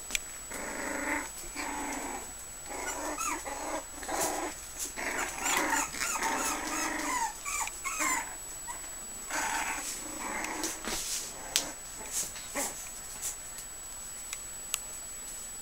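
Five-week-old puggle puppies play-fighting, growling and yipping in repeated short bursts of high-pitched calls for most of the first eleven seconds. After that the calls stop and only a few sharp clicks are heard.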